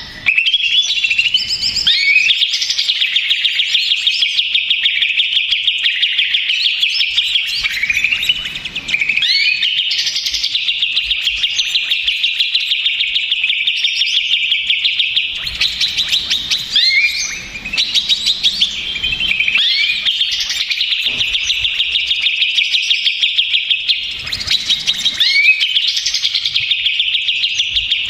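Cucak ijo (green leafbird) singing a fast, near-continuous song of rapid chattering notes broken by swooping whistles, with only brief pauses. This is the agitated song used as a lure to provoke other cucak ijo into singing.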